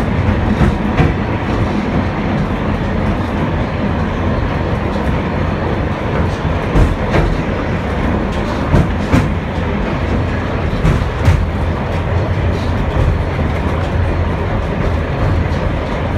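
Vintage M-24 tram running along the street, heard from inside the passenger car. A steady low rumble of wheels on rail, with scattered sharp clicks and knocks from the track.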